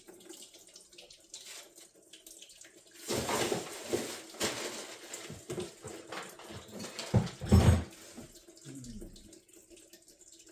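Engine coolant pouring and splashing out of a radiator's open lower hose port into a catch pan, getting louder about three seconds in. A few heavy knocks come near the end, about seven to eight seconds in.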